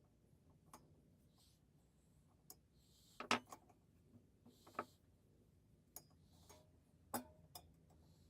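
Scattered light clicks and taps of small metal parts being handled, about seven in all, the loudest a quick double tap about three seconds in, with short soft scraping sounds between them.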